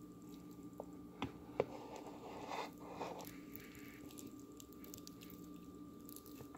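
Soft squishing of cooked potato pasta clumps in a colander, with two small clicks a little over a second in and a brief rustle in the middle.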